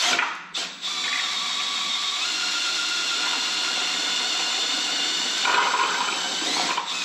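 Electric drill spinning the oil pump to flush fresh oil through a Ford 352 FE V8 block's oil galleries: a couple of short trigger pulls, then a steady run with a faint motor whine while oil pours out of the block and splashes into a drain pan.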